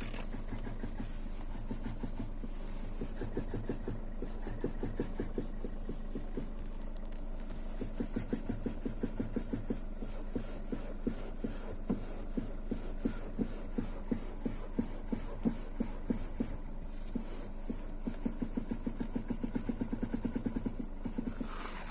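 Rapid knocking in a Kia Rio 4 over a steady engine hum, a few knocks a second, growing more distinct about a third of the way in. The owner takes it for a knocking steering rack but is unsure whether it is the rack or a rattling speaker.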